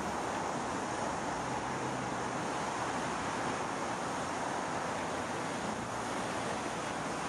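Steady harbour ambience: an even rushing of water and wind, with a faint low hum that fades out about two seconds in.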